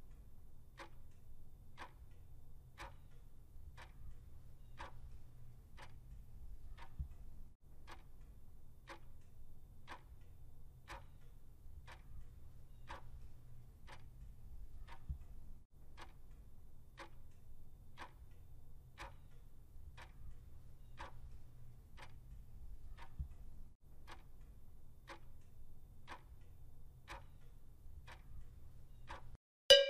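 Countdown timer sound effect ticking once a second over a low steady hum, ending near the end in a loud ding that marks time up.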